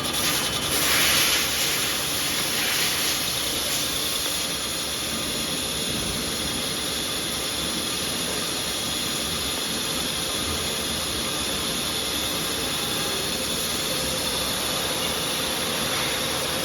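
Portable line boring and bore welding machine at work, giving a steady mechanical hiss with a faint high whine. It is louder and more uneven for the first three seconds or so, then settles.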